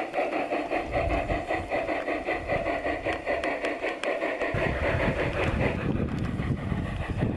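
Large-scale garden-railway model steam locomotive chuffing steadily as it runs, about four beats a second. A low rumble of wind on the microphone comes in about halfway.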